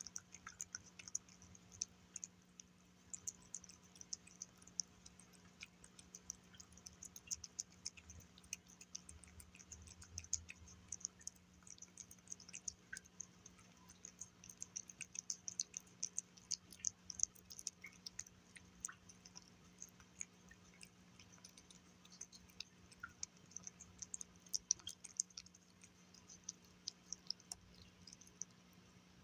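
A cat chewing wet food (seared salmon with spinach) from a shallow bowl: faint, quick, irregular clicking of its mouth in the food, several clicks a second, over a faint steady low hum.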